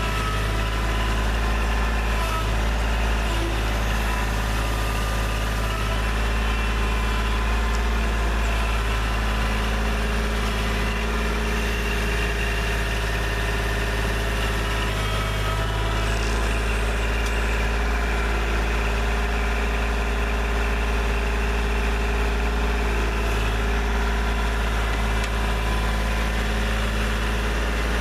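Diesel engine of a Kubota backhoe running steadily at idle.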